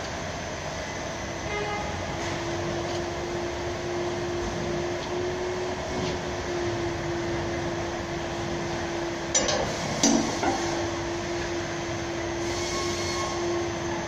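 Steady workshop machinery hum with a constant tone, and a few sharp clicks about nine and ten seconds in from hand tools on metal under a lifted van.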